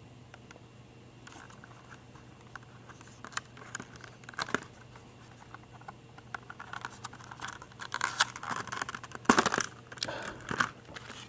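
Packaging being handled and opened: intermittent rustling and crinkling with small clicks, sparse at first and busier in the second half, with a louder rustle about nine seconds in.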